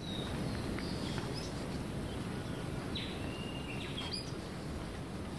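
Forest ambience: a steady, low background hiss with a few short bird calls. The clearest call comes about three seconds in, a falling high note that turns into a short held whistle, and a brief call follows about a second later.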